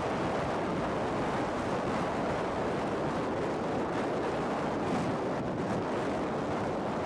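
Steady wind noise buffeting the microphone of a camera carried by a pillion passenger on a motorcycle at road speed, an even rush without breaks.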